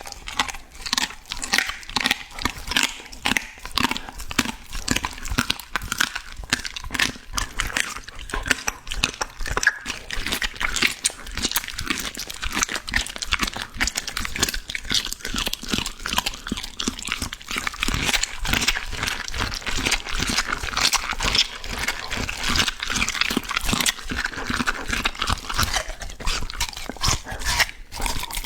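A dog chewing and crunching through raw beef and bone, with rapid, irregular crunching bites.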